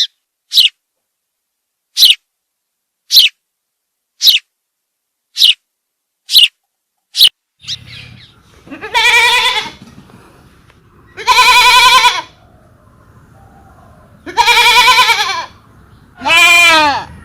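About eight short, high chirps roughly a second apart, then a goat bleating four times in long, wavering calls of about a second each.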